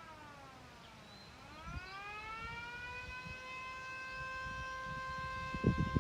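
Vixen horn siren winding down in pitch to a low point about a second in, then winding back up and holding a steady tone. Low rumbling thumps come in near the end.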